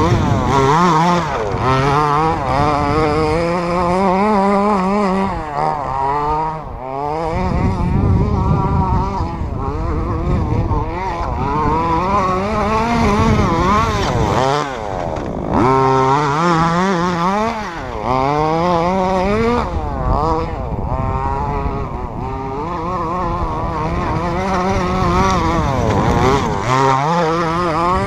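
Small high-revving motors running continuously, their pitch wobbling and stepping up and down every fraction of a second with constant throttle changes, dipping briefly a few times.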